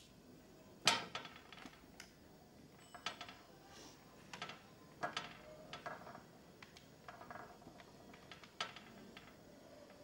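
A string of clicks and knocks from a landline telephone being picked up and dialled, the first knock about a second in the loudest.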